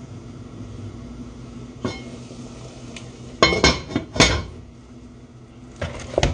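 Metal cookware clanking: a pot lid and utensils knocking against a pot of boiling water as spelt flour dumplings go in. There is a cluster of sharp clanks about halfway through and a couple more near the end, over a low steady hum.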